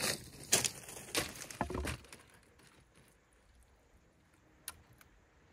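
Footsteps crunching and knocking on beach stones and pebbles for about two seconds, then quiet with a few faint clicks.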